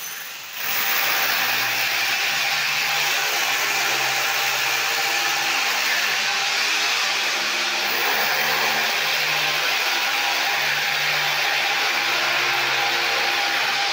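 Corded electric drill running steadily under load as it bores into a door frame. It starts about half a second in and runs on without stopping.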